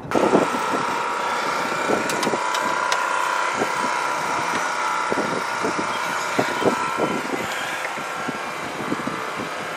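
A steady mechanical hum, with scattered light knocks and clicks from hands working on the outboard engine's wiring and engine box.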